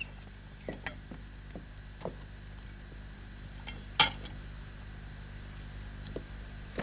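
Light clicks and chinks of cutlery on a china plate as a man eats, with one sharper, louder sound about four seconds in. Right at the very end a sudden loud cough bursts out as he starts choking on an apricot stone left in the jam pastry.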